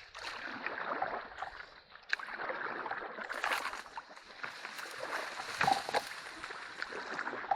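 Canoe being paddled through a creek: irregular splashing and dripping of paddle strokes in the water, with scattered short clicks and knocks.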